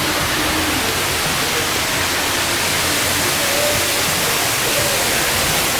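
Steady rushing noise of water circulating in a large indoor fish tank, with faint snatches of distant voices.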